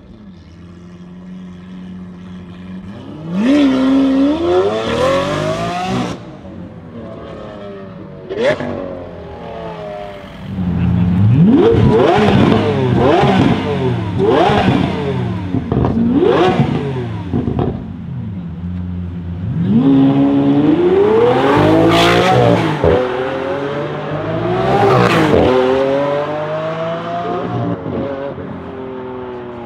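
Lamborghini Aventador's V12 engine revving hard in a series of rising blips that drop back each time, then revving higher with a couple of sharp cracks, its pitch falling away near the end.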